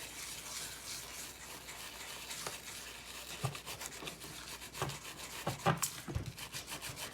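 Repeated short rubbing and scrubbing strokes on iPod Classic parts during cleaning with rubbing alcohol, with a few soft knocks in between.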